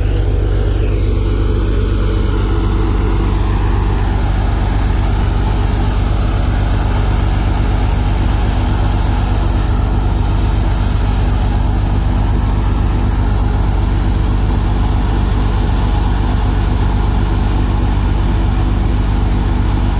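Deepak multicrop thresher running steadily under load, a loud even machine noise over a constant low engine note, as dried pearl millet heads are fed into it.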